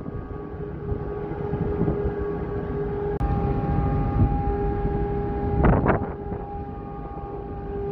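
Steady low rumble and a held machinery hum aboard a car ferry. The hum jumps to a higher pitch about three seconds in, and there is a brief rush of noise near six seconds.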